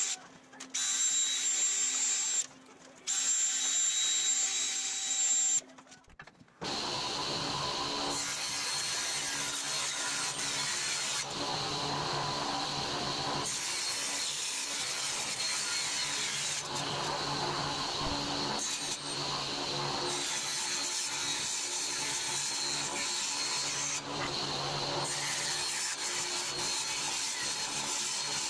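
Cordless drill drilling holes in thin aluminum sheet in short runs, stopping briefly three times. About six seconds in, a table saw takes over, running steadily as it cuts strips from aluminum sheet.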